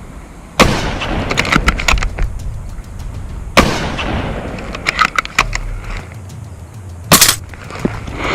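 Airsoft guns firing during a skirmish: two loud cracks about three seconds apart, each trailing off, with scattered lighter snaps between them and a short burst of rapid fire near the end.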